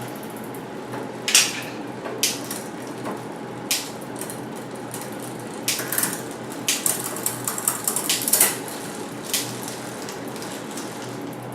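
Metallic clicks and clinks from hand work on a mountain bike's drivetrain and tools, scattered at first, then a quick flurry about six to eight and a half seconds in, over a steady fan-like hum.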